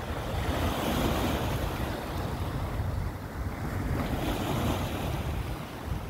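Small sea waves washing in at the shore, with wind buffeting the microphone in a low rumble. The wash swells about a second in and again about four seconds in.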